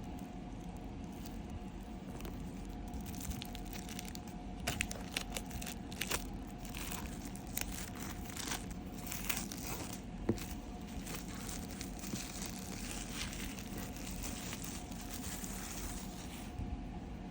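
Packaging crinkling and tearing as a set of books is unboxed, in a run of sharp rustles that is busiest from about five to ten seconds in. A steady low hum runs underneath.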